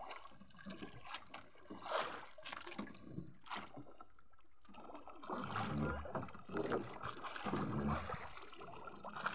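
Water lapping and trickling against a small fishing boat drifting with its engine off, with scattered knocks and rustles.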